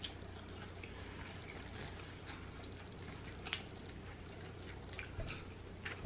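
Close-miked eating sounds of fried chicken: scattered wet mouth clicks and lip smacks, one sharper click about three and a half seconds in, over a steady low hum.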